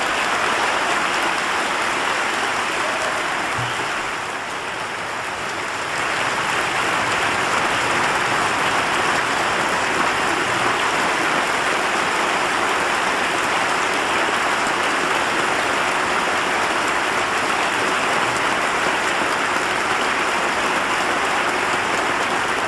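Large crowd giving a standing ovation: dense, sustained clapping, easing slightly for a couple of seconds about four seconds in.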